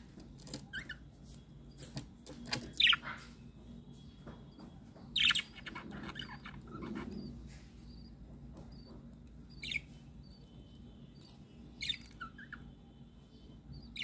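Pet budgerigars chirping in short, scattered calls, the loudest about three and five seconds in.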